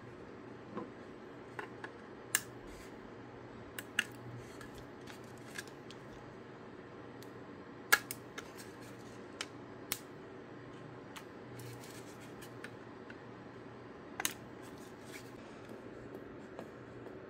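A small precision screwdriver and tiny screws clicking and tapping against a 3D-printed plastic speaker housing as screws are driven into its top panel: scattered sharp clicks, the loudest about eight seconds in.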